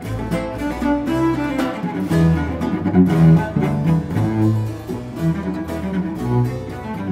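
Background instrumental music: slow, held notes over a low bass line, with a deep string sound like cello and double bass.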